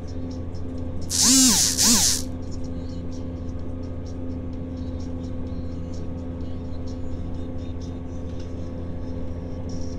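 Steady low hum and rumble of a moving train heard from inside, with a faint regular high ticking running through it. A little over a second in come two loud, brief swooping sounds that rise and fall in pitch.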